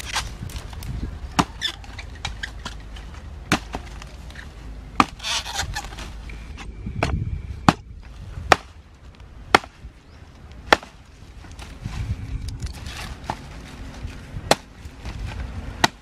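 Dry grass rustling and twigs snapping as a small grass fire is built and fed by hand, with sharp cracks every second or two.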